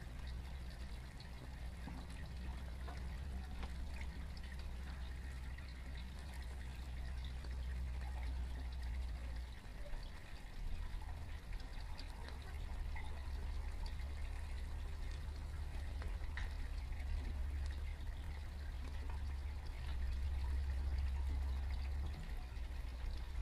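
Meat sizzling and crackling faintly on a grill over a smouldering LiPo battery, a soft hiss dotted with small ticks, under a steady low rumble of wind on the microphone.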